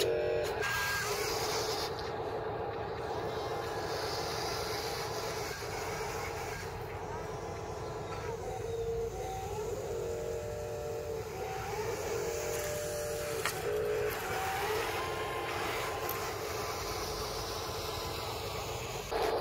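Electric drive and arm motors of a Huina 583 radio-controlled wheel loader whining on and off as it moves, the whine rising and falling in pitch.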